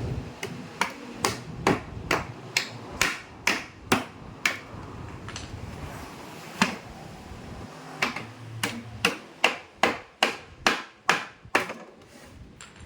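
Sharp knocks in quick succession, about two to three a second, in two runs with a single knock between them, as a shipping package is opened.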